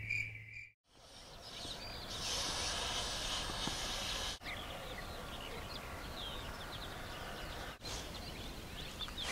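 Crickets chirping in a steady pulse a few times a second, fading out within the first second. Then morning outdoor ambience with many small birds chirping and twittering.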